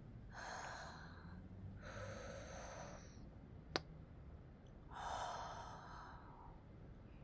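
A woman breathing audibly: two breaths, then a longer, louder sigh about five seconds in. A single sharp click comes just before the four-second mark.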